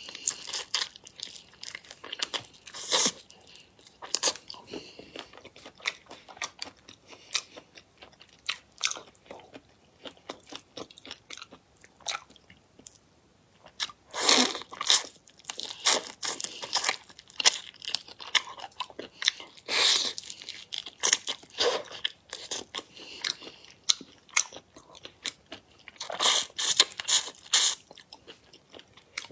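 Close-miked crunching and chewing of whole shrimp, shells included, in irregular crackly bites. The loudest bursts come about halfway through and again near the end.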